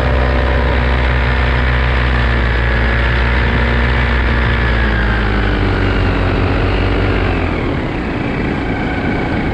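Paramotor engine and propeller running under power in the air, with wind rush. About halfway through the engine's pitch slowly falls as it slows, and near the end the engine tone fades under the wind noise.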